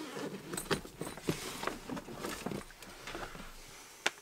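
Handling noise: light plastic knocks, clicks and rustling as a cordless DeWalt impact wrench and its battery pack are picked up and brought together by hand.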